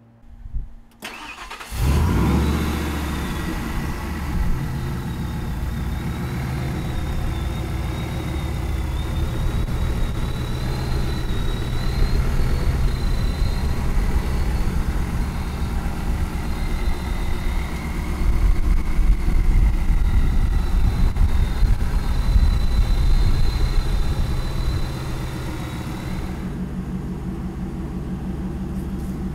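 Supercharged 5.4 L Ford Lightning V8 with a stainless Magnaflow exhaust, cranked briefly and catching about two seconds in, then idling steadily with a thin high whine on top and louder, uneven stretches through the middle. Near the end the sound drops to a duller low rumble.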